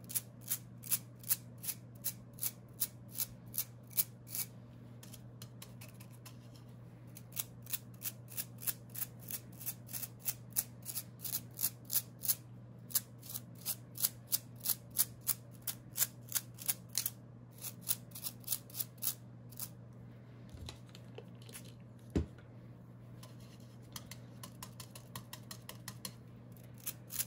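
Stiff brush bristles flicked again and again with a fingertip to spatter ink, each flick a short sharp snap, about two or three a second, in runs with brief pauses.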